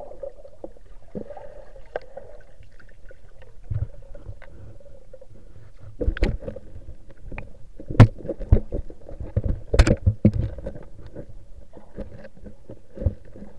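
Muffled underwater sound picked up by a submerged camera: steady low water noise with scattered sharp knocks, the loudest about eight and ten seconds in.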